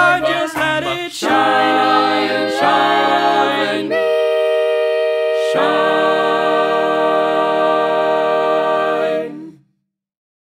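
A group of voices singing a cappella in close harmony, closing the song with a run of long held chords. About halfway through a low bass voice joins, and the final chord is held for about four seconds before it stops near the end.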